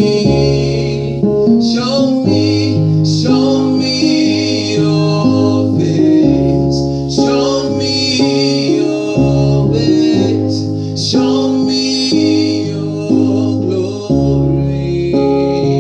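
Live worship music: singing over sustained keyboard and guitar chords with a bass line, the chords changing every second or two.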